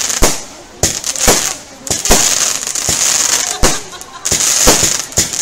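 Aerial fireworks bursting overhead: a rapid, irregular string of about a dozen bangs, with a high hiss between them.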